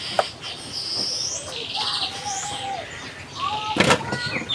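Birds calling in the background, with high whistled and gliding notes and a short trill. A single sharp knock comes near the end.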